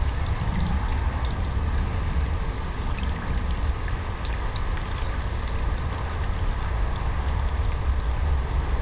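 Water sloshing and trickling around a person's legs as they wade slowly through a shallow inflatable pool, over a steady low rumble.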